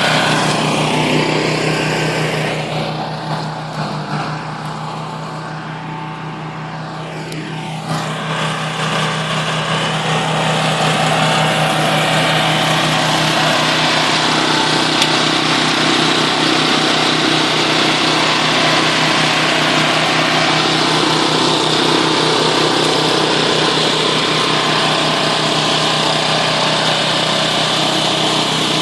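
OREC HRC 802 tracked flail mower's engine running steadily. It gets quieter for a few seconds starting about three seconds in, then comes back up to full level.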